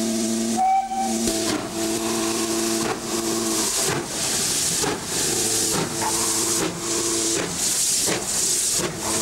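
Steam locomotive working a train, its exhaust chuffing in even beats of hiss about two a second. A steady low tone sounds beneath the beats for the first few seconds and again around six to seven seconds in.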